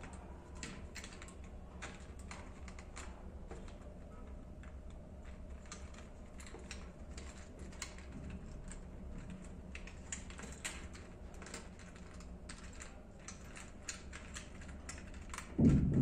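Irregular small clicks and ticks as a bare copper wire is bent and wrapped around the terminal screws of sockets on a plastic extension board, with fingers handling the board. A louder bump comes just before the end.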